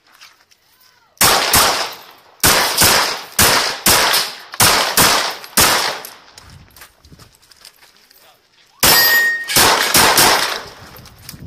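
Glock 17 9mm pistol fired in quick strings of shots, often in close pairs, about a dozen shots in the first half. A pause of a couple of seconds follows while the shooter moves, then another rapid string near the end, with a brief high ringing tone at its start.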